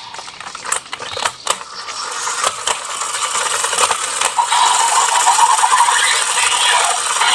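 Several sharp plastic clicks and ratcheting from a DX Ninja Raise Buckle toy belt buckle and its driver being worked by hand, then a steady hissing electronic effect from the toy from about four and a half seconds in.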